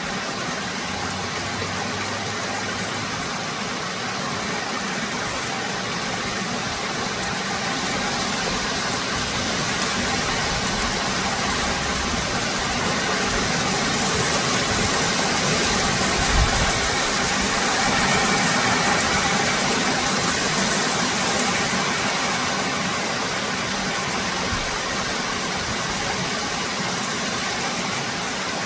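Steady rain falling, a continuous even hiss, with a brief low thump about two-thirds of the way through.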